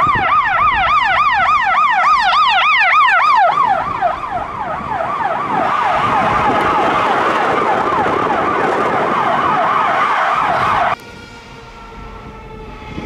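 Emergency vehicle electronic sirens on yelp, a fast wail that rises and falls several times a second, with a second siren overlapping it from about four seconds in. Both cut off abruptly about eleven seconds in, leaving a quieter, slower siren.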